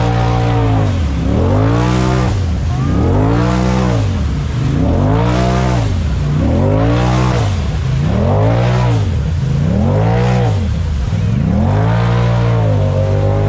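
Polaris RZR side-by-side engine revved up and falling back about seven times in a row, each surge lasting about a second and a half, as the machine claws through a deep mud hole on tall mud tires.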